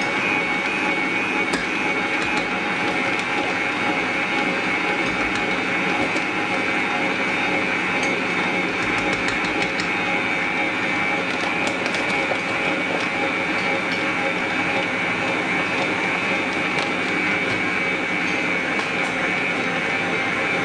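Electric stand mixer running steadily, its wire whisk beating egg whites and protein powder in a stainless steel bowl into a stiff meringue-like foam.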